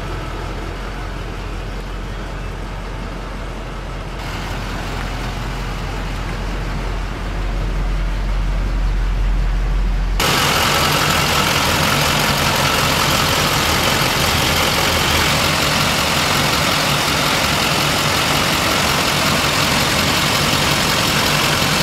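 Duramax turbo-diesel V8 of a 2005 GMC C5500 idling steadily. It is muffled at first, then about ten seconds in it becomes suddenly louder and clearer, heard close up at the open engine bay.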